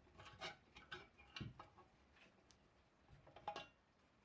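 Faint metal clicks and taps of a screwdriver and a metal rod knocking against a cast-iron hibachi body. There are several clicks in the first second and a half with a duller knock among them, and a few more clinks near the end.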